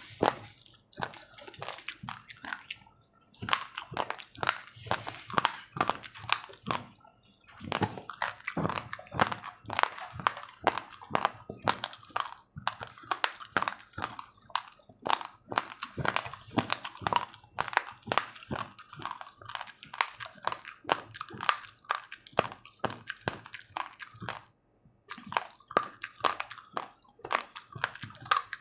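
A person chewing a mouthful of uncooked white rice, the dry grains crunching in quick, crackly bites, with a few short pauses.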